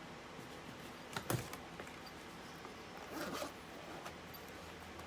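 Lock picks and tools being handled while searching through a pick kit: two sharp clicks a little over a second in, then a short scraping rustle about three seconds in.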